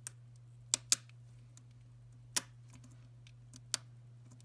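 A Chromebook keycap clicking as a finger pushes it down onto its scissor hinge clips: five sharp plastic clicks, the loudest a quick pair about a second in, then single clicks near the middle and near the end, over a low steady hum. The clicks are the keycap snapping into place on its hinges.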